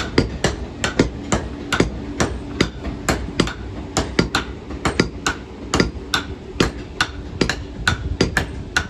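Hammer blows on red-hot iron on an anvil, a rapid steady rhythm of about four strikes a second, as horseshoe iron is forged into a ring.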